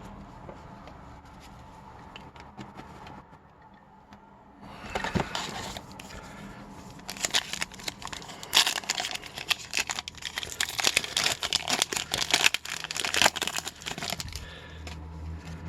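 A 2020-21 Upper Deck Extended Series hockey card pack wrapper being torn open and crinkled. The tearing starts suddenly about five seconds in and turns into dense crackling through most of the rest, after a few seconds of faint handling ticks.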